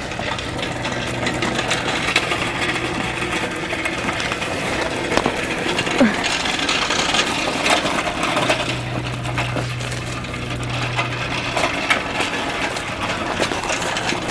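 A small motor, most likely a power tool, running steadily with a low hum that gets stronger for a few seconds past the middle.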